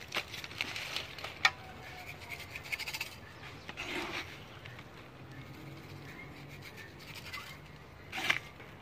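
Irregular scraping and rubbing in dry soil and leaf litter from digging by hand, with a sharp knock about one and a half seconds in and short louder scrapes about four seconds in and near the end.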